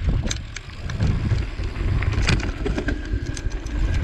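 Mountain bike ride on a rocky dirt trail heard from a moving action camera: wind rumble on the microphone and tyres rolling over gravel, with scattered sharp clicks and rattles from the bike and stones.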